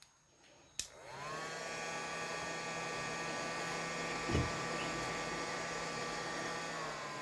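Hot-air rework station blower switched on with a click, spinning up with a rising whine, then blowing steadily. A brief low thump sounds about four seconds in.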